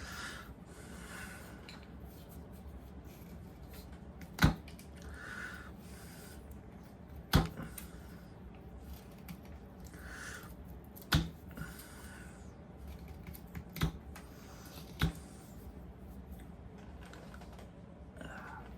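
Carving knife whittling a small poplar block: soft shaving strokes, broken five times by a sharp click or snap.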